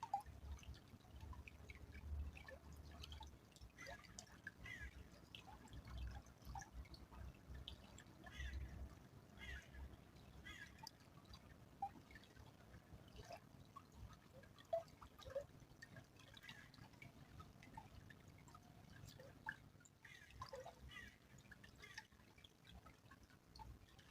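Small stream trickling faintly, with many small, irregular drips and bubbling plops.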